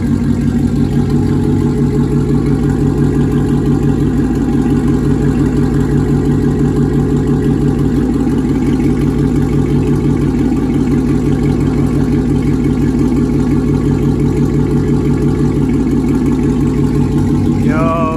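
Dodge Charger R/T's 5.7-litre Hemi V8 idling steadily and loudly through a custom full 3-inch exhaust with no catalytic converters, a deep, aggressive rumble.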